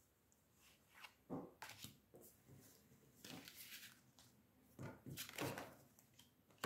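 Oracle cards being laid and slid onto a cloth-covered tabletop: a few faint rustles and soft taps, scattered over several seconds.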